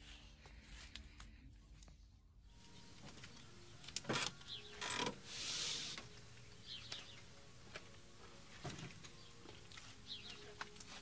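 Sliding side door of a Fiat Ducato campervan: a couple of clunks about four and five seconds in, then a short rolling rush as it runs along its track. Faint bird chirps and small clicks follow.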